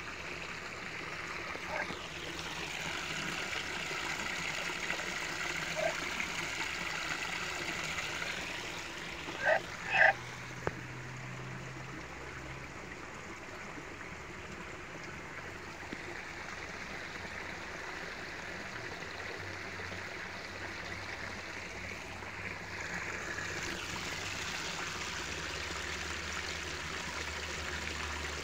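A small spring-fed stream trickling steadily, with two brief louder sounds close together about ten seconds in.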